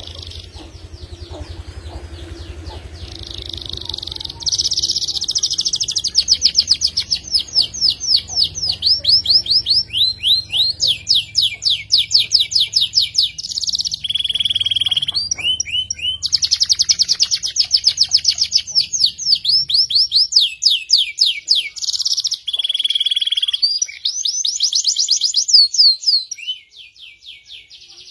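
Domestic canary, a second-generation Yorkshire cross, singing long rolling trills of rapidly repeated high, sharp notes, broken now and then by a short held whistle. A low hum runs underneath for the first two-thirds.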